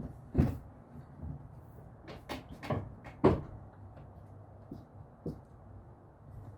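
A handful of separate knocks and clunks from tools or parts being handled during engine work, irregularly spaced, the loudest a little over three seconds in, over a faint steady hum.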